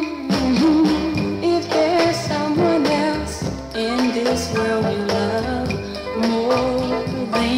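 1960s Motown girl-group soul record playing: the band with a steady drum beat and held sung notes.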